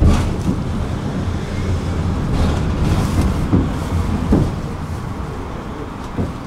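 Tram in motion, heard from on board: a steady low rumble of steel wheels on rails with a low motor hum and a few knocks from the track. The sound grows quieter toward the end.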